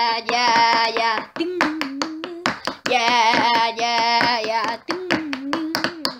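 A voice singing wordless held notes in several phrases, some low and some louder with a wavering pitch, over a run of sharp hand-percussion hits in a small room.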